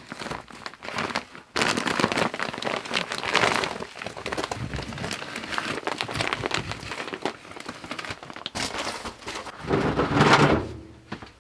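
Fiberglass batt insulation being pulled down from between floor joists by gloved hands: a rough rustling and crackling that comes and goes in bursts.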